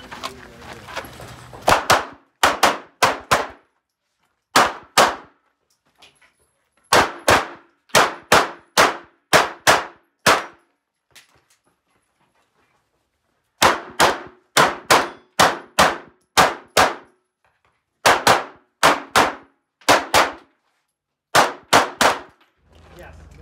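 Glock 17 Gen 5 9mm pistol fired rapidly in pairs of shots, about forty in all, in strings broken by short pauses, each shot with a brief metallic ring.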